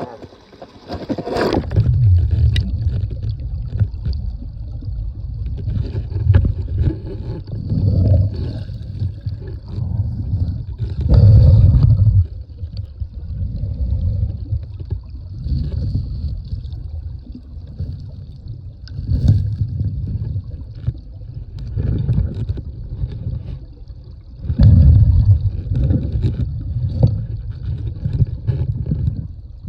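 Creek water sloshing and gurgling close to the microphone, in loud, uneven low rumbling surges every second or two.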